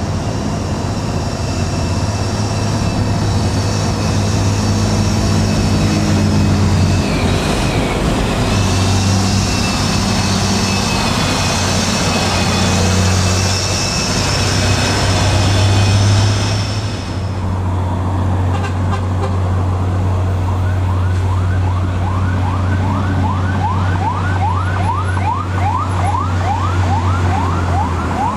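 Heavy diesel dump truck engines running hard under load on a steep climb, a steady deep drone. From about two-thirds of the way in, a siren-like rising whoop repeats about twice a second over the engine.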